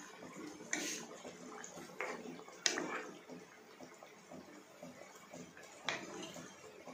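Goat liver gravy boiling in a pan: faint bubbling with a few sharp pops.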